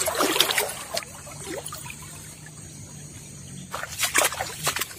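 River water splashing and sloshing around a man wading waist-deep, loudest in the first second, then a few sharp splashes of footsteps through shallow water about four seconds in.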